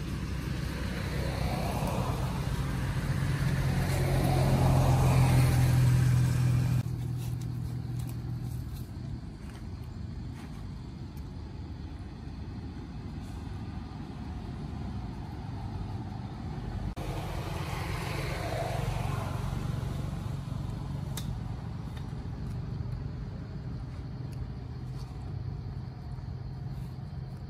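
Motor vehicle engine hum from nearby traffic, swelling to a peak about five seconds in and cutting off abruptly, then a lower hum that swells again briefly past the middle.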